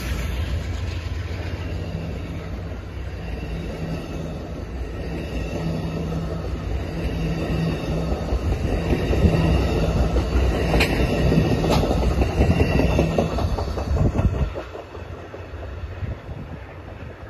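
Amtrak passenger train with GE P42 diesel locomotives rolling past close by. The locomotives' engines drone steadily while the double-deck Superliner cars clatter over the rail joints with a few sharp clicks. The noise drops away suddenly about fourteen seconds in as the last car goes by.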